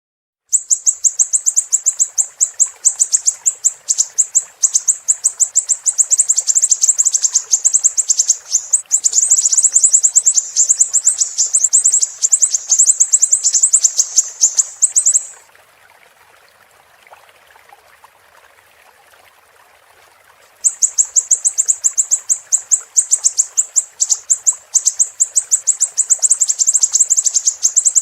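A small songbird, the siri-siri, singing a very fast, high, unbroken twittering song. It breaks off for about five seconds midway and then resumes. A faint steady hiss lies underneath.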